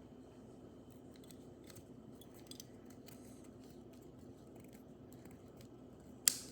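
A screwdriver working a small contact into a heart rate monitor's plastic housing: faint scraping and light ticks, then one sharp click near the end as the part seats.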